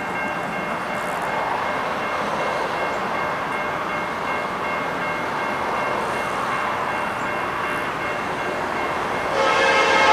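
Norfolk Southern SD70M-2 and SD70M diesel locomotives approaching at the head of an auto-rack freight train, a steady rumble of engines and rolling wheels. About nine seconds in, the lead locomotive's air horn starts sounding loudly, a chord of several held notes.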